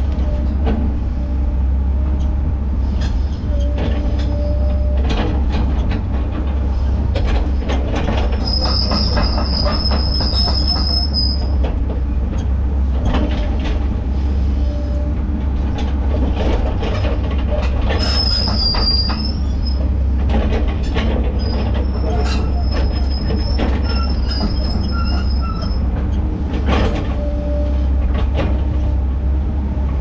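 Skid steer working, its engine running steadily, with frequent clanks and knocks. A high metallic squeal lasts a few seconds about nine seconds in, and a shorter one follows later.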